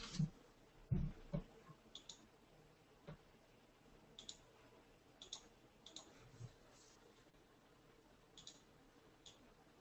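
Computer mouse clicking: single short clicks about a second apart, after a few louder taps in the first second and a half.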